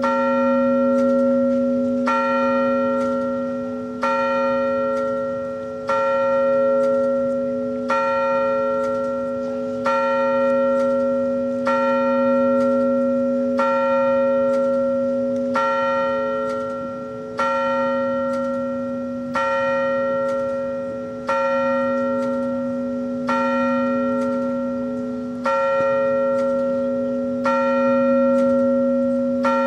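A single bell tolled steadily, about one stroke every two seconds. Each stroke has the same pitch and rings on into the next.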